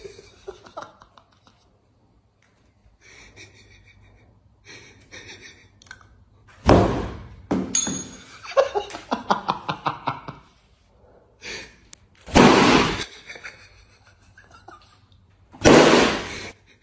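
Three loud, short thuds several seconds apart, with a spell of laughter between the first two.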